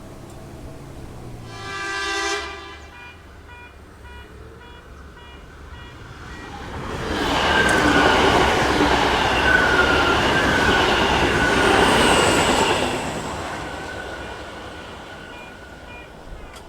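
A train sounds a short horn blast about two seconds in while the level crossing bell dings repeatedly. A few seconds later the train rushes through the crossing at speed, with wheel and rail noise and high squealing tones, then fades away.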